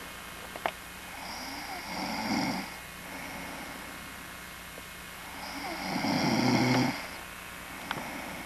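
A sleeping man snoring: two slow snoring breaths, a shorter one about two seconds in and a longer, louder one about six seconds in.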